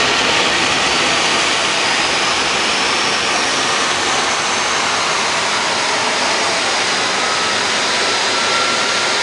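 Jet turbine engines of jet-powered, locomotive-bodied drag racing trucks running with a steady, loud roar, with faint whining tones above it slowly creeping up in pitch.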